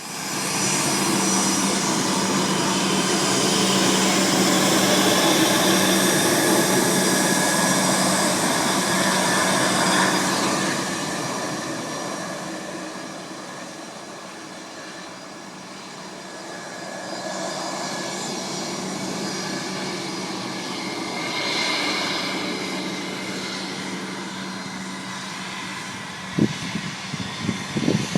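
Bombardier CRJ200 regional jet's two rear-mounted General Electric CF34 turbofans running, a steady hum under a loud hiss. The noise is loudest early, fades after about ten seconds, then swells again before easing off. A few sharp knocks come near the end.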